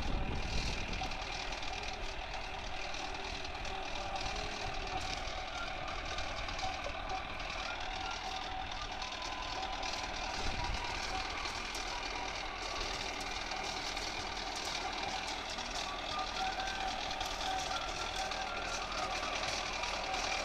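Mahindra Arjun Novo 605 DI tractor's diesel engine running steadily under load while it pulls a rotavator through dry soil, with a steady whine over the engine sound.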